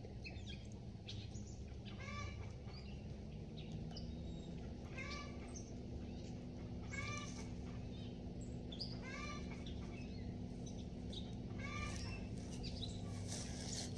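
Short bird calls repeating about once a second, each a brief arched note, over a faint low steady hum.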